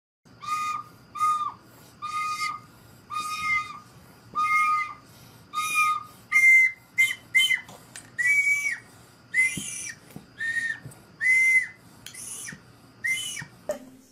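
A toddler blows an orange plastic toy horn in a string of short, breathy toots, about one a second. About halfway through the pitch jumps higher, and the toots become shorter and quicker.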